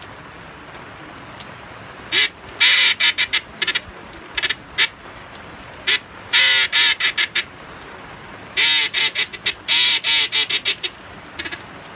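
Mallard duck calls (reed calls) blown by mouth in several runs of quick quacks, separated by pauses. The reeds are wet and still sounding cleanly. A steady hiss of heavy rain runs underneath.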